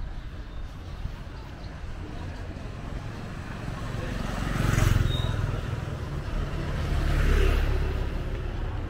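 A small motorbike engine passing close by on the street, growing louder and then fading. The traffic noise swells twice, about halfway through and again near the end.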